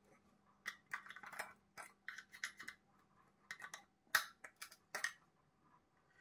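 A run of short, quick scratching strokes, a dozen or so in bursts, the loudest about four seconds in, as something hard is scraped against a hard surface; they stop about a second before the end.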